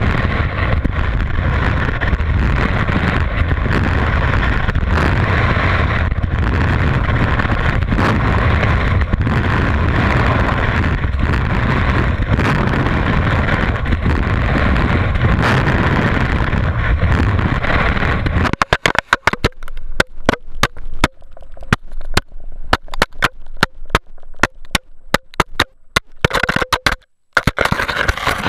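Skis running fast on snow, heard from an action camera mounted near the skis: a steady loud rush of wind and snow. About 18 seconds in the rush cuts off suddenly and gives way to a string of irregular sharp clicks and scrapes close to the microphone, with short quiet gaps between them.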